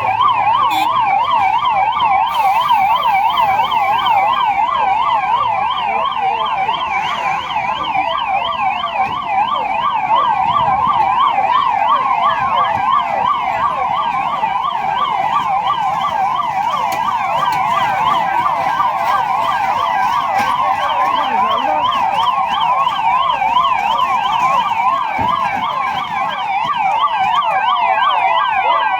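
Emergency vehicle siren sounding continuously in a fast up-and-down yelp.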